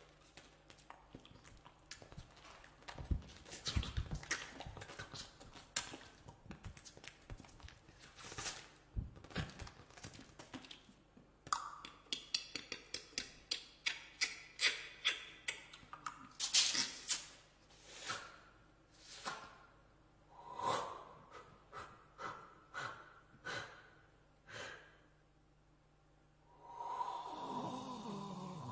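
Experimental vocal noise into a close microphone: sharp breathy gasps, snorts and mouth clicks in quick runs of short bursts. Near the end a voiced tone comes in and slides downward.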